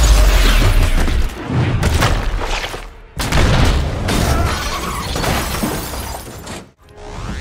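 Film battle sound effects: a run of heavy booms and crashes with shattering glass and flying debris. The loudest come at the start and again about three seconds in. Faint music runs beneath.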